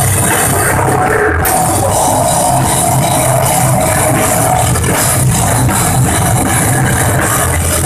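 A loud live rock band playing: distorted electric guitars over a pounding drum kit.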